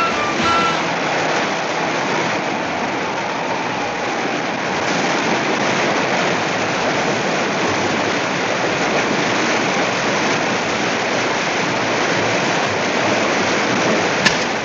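A steady rushing noise from a cartoon's sound-effects track, without music, with a sharp click near the end.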